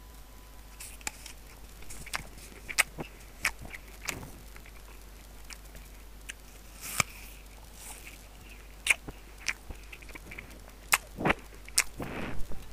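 Crunchy chewing and biting: irregular sharp crunches and clicks, with the loudest crunches coming close together near the end.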